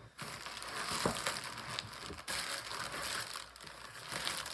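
Plastic bubble wrap crinkling and rustling as it is handled, with scattered sharp crackles and a brief lull a little past three seconds in.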